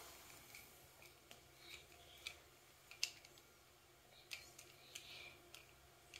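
Near silence, broken by faint scattered clicks of small toy cars being set down in a row and tapping against one another, with a few soft rustles.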